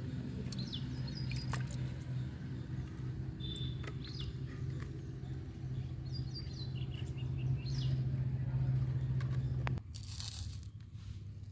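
Small birds chirping in short high chirps over a steady low hum; the hum cuts off suddenly near the end and a brief hiss follows.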